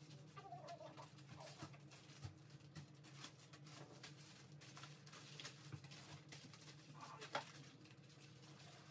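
Near silence: a steady low room hum with faint rustles and taps of plastic diaper and wipe packaging being handled, and one sharper tap about seven seconds in.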